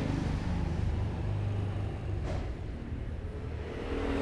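Motor scooter engines running on the street outside, a low steady hum that swells as a scooter passes near the end.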